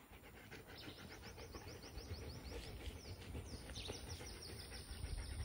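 A bird calling in two fast trills of short, high notes, about ten a second, the first about two seconds in and the second near the end, over a faint low rumble.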